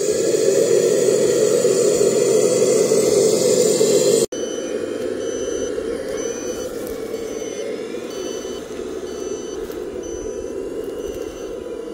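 1/14-scale RC truck running steadily, a sound-module engine or hydraulic pump. After an abrupt cut about four seconds in, the running sound continues more quietly under a regular series of short, high reversing beeps.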